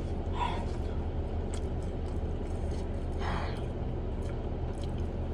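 Steady low hum of a car idling, heard inside the cabin, with two short soft noises about half a second in and about three seconds in.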